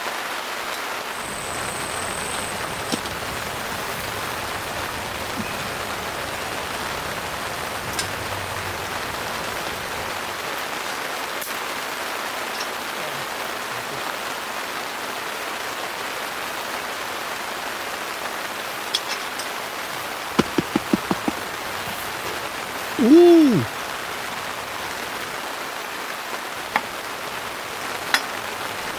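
Heavy rain pattering steadily on a tent. About two-thirds of the way through there is a quick run of about five short knocks, then a brief squeak that rises and falls in pitch, the loudest sound here.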